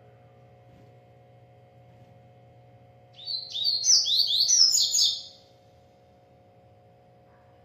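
Double-collared seedeater (coleiro/papa-capim) singing one rapid, high, chirping phrase of about two seconds, starting about three seconds in. A faint steady hum runs underneath.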